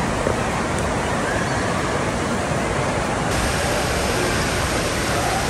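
Steady rush of water in an indoor water park. After a cut about three seconds in, water churns through the run-out pool of a tube water slide.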